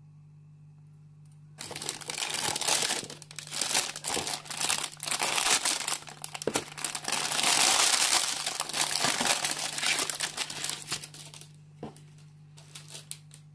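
Thin plastic bags around a model kit's plastic runners crinkling as they are handled and unwrapped. The crinkling starts about a second and a half in, is loudest past the middle and dies away near the end, leaving a few light clicks of plastic.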